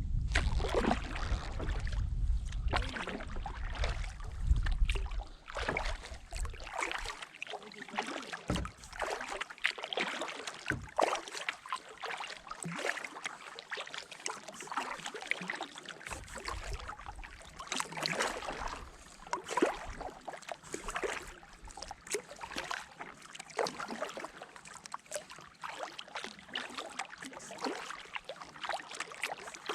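Kayak paddle dipping and splashing in the water with irregular strokes and drips. There is wind rumble on the microphone for the first several seconds.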